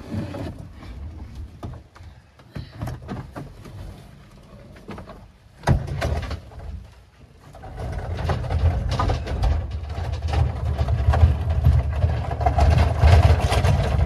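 Scattered knocks and clunks, with one sharp bang about six seconds in, then a vehicle engine running steadily from about eight seconds in.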